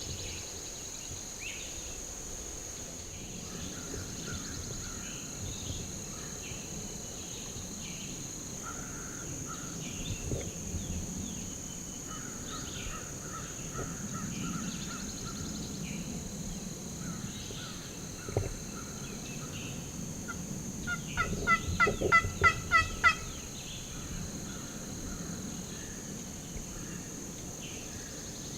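Wild turkey gobbler gobbling once about three quarters of the way in: a rapid rattling run of about eight notes lasting about two seconds. Scattered faint songbird chirps and a steady high insect drone run beneath it.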